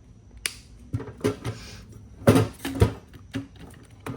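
Tools being handled in a toolbox: a series of separate clicks and knocks as items are picked up and set down, the two loudest a little past halfway.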